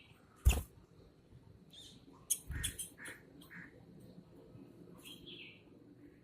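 Birds chirping in short calls, with a sharp thump about half a second in and a second burst of thumping and rustling around two and a half seconds.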